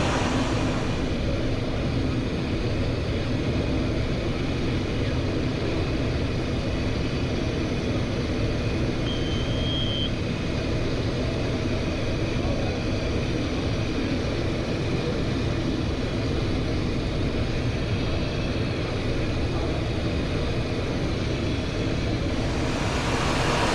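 Steady cockpit noise of a Cessna Citation XLS on approach, with gear and flaps down: an even rush of airflow and engine noise. A brief high beep sounds about nine seconds in.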